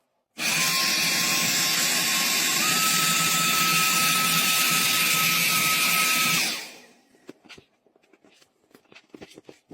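Mini handheld vacuum cleaner's motor running with a rushing airflow and a high whine. The whine steps up in pitch about two and a half seconds in. The motor is switched off after about six seconds and winds down quickly.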